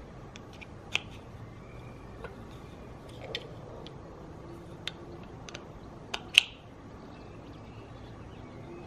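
Plastic Meccano parts clicking and knocking together as red plastic wheels are handled and pushed onto a plastic axle rod. The clicks come one at a time, a second or so apart, and the sharpest comes a little after six seconds.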